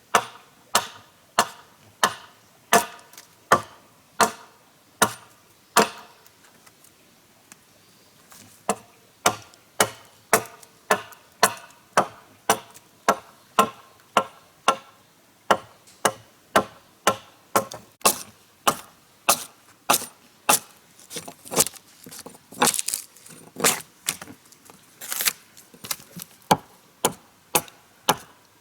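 Repeated chopping strikes of a blade into wood, sharp separate blows in a steady rhythm. They come slower at first, stop for a couple of seconds, then carry on faster at about two a second.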